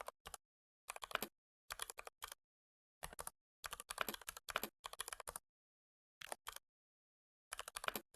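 Typing on a computer keyboard: quick runs of keystroke clicks in several bursts, the longest lasting about two seconds, with complete silence between them.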